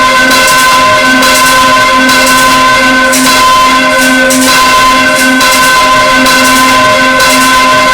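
A full peal of six swinging church bells ringing together. Strikes overlap in an uneven stream over their long-held ringing tones.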